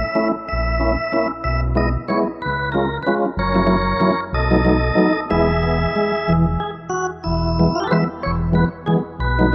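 Background music led by an organ-like keyboard, with held chords over a pulsing bass at about two beats a second.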